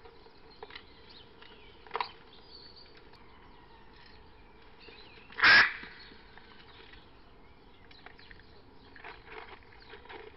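Hyacinth macaw giving one loud, harsh squawk about halfway through, after a shorter, quieter call about two seconds in, over a faint steady hiss.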